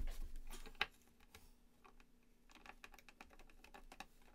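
Phillips screwdriver turned by hand, driving a screw through a plastic skateboard rail into the wooden deck: faint, irregular small clicks and ticks as the bit works in the screw head, with a sharp click about a second in.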